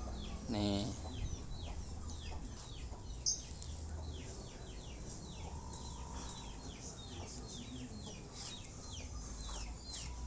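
Birds chirping: many short falling calls, several a second, over a low steady rumble.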